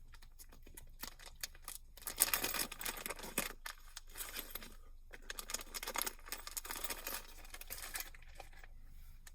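A plastic zip-lock bag being handled and opened, crinkling unevenly with scattered small clicks, busiest in the middle stretch.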